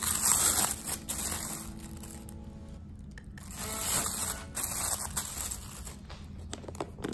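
Plastic food-storage containers and their lids being handled and pressed shut, with crinkling plastic rustle. The rustling is loudest in the first second and again about four seconds in.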